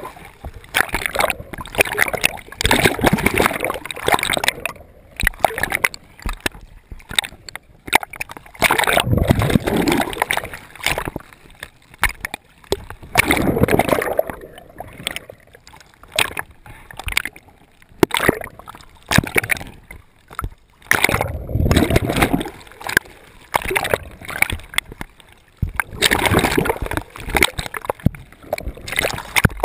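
Seawater sloshing and splashing around a camera bobbing at the surface, with gurgling scuba bubbles coming in bursts every few seconds.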